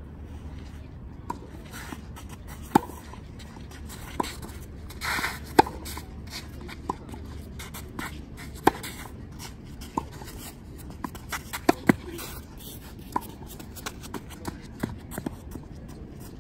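Tennis rally: sharp pops of the ball off racket strings and its bounces on the court, one every second or two, the loudest about every three seconds with fainter ones from the far end between, and some shoe scuffing on the court surface.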